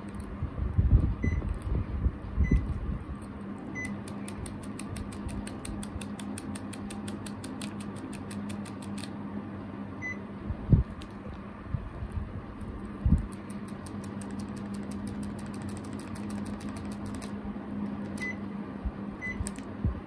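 Panasonic Envio split air conditioner's indoor unit giving short high beeps as it takes commands from the remote: three in the first few seconds, one about ten seconds in and two near the end. Under them the unit's fan hums steadily, with low handling thumps and a fast run of faint clicks in the middle.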